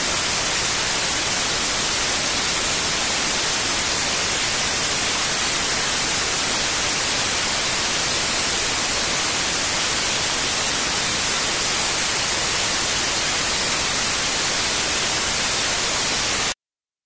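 Steady electronic static hiss, brighter in the treble, with no tone or rhythm; it cuts off suddenly near the end into silence.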